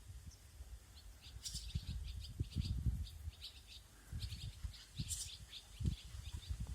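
Several small birds chirping in quick, short, high calls, starting about a second in. Low thumps and rumbling sound underneath.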